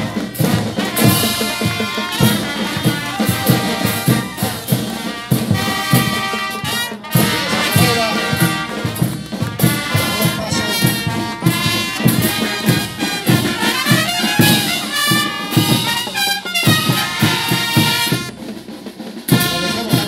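Brass band with drums playing, horns carrying the tune over a steady beat.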